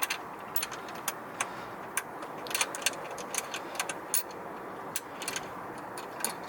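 Irregular light clicks and rattles of small parts and hardware being handled, over a steady low hiss.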